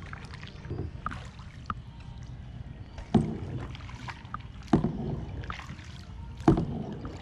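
Paddles dipping into lake water as a small boat is paddled along: splashy strokes about one every one and a half seconds, three of them in the second half, over a low steady rumble.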